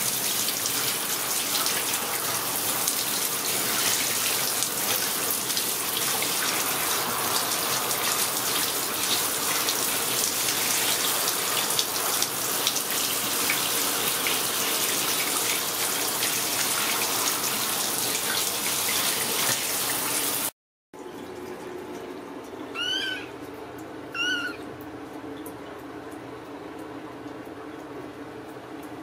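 Handheld shower head spraying water over a kitten in a bathtub: a steady hiss that cuts off suddenly about two-thirds of the way through. Then a Ragdoll kitten gives two short meows about a second and a half apart.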